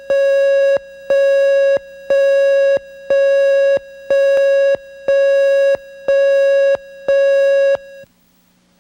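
Videotape leader tone sounding with the slate: one steady electronic beep repeated once a second, eight beeps in all, each lasting most of the second. The beeps stop about eight seconds in, just before the program starts.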